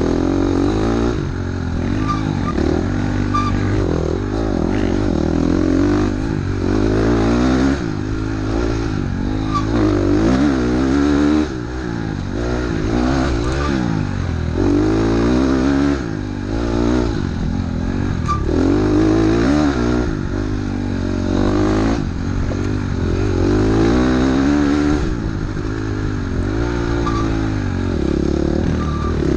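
Off-road dirt bike engine revving up and down over and over as the rider works the throttle along a rough singletrack trail.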